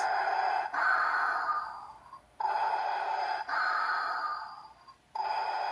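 Oversized Darth Vader Pez dispenser playing its electronic Darth Vader heavy breathing: slow, repeating in-and-out respirator breaths, with every other stroke trailing away.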